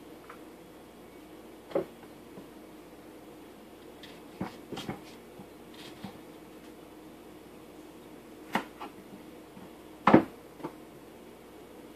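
Kitchen knife cutting citrus fruit on a counter: a handful of separate knocks and clicks of the blade and fruit, the loudest about ten seconds in, over a faint steady hum.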